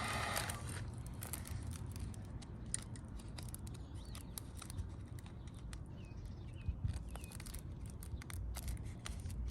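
Thin plastic backing being peeled off a sheet of vinyl tint film: scattered small crackles and clicks as the film separates. A steady blowing hiss cuts off about half a second in.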